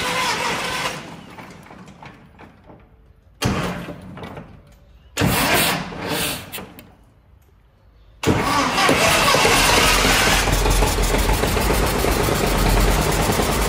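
Antique tractor engine, primed with petrol, being started: it runs briefly and dies away, fires in two short bursts, then catches about eight seconds in and keeps running with an even beat.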